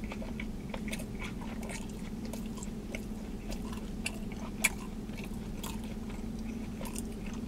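A person chewing a mouthful of sub sandwich with the mouth closed: soft wet mouth clicks and smacks scattered throughout, one sharper smack a little past halfway, over a steady low hum.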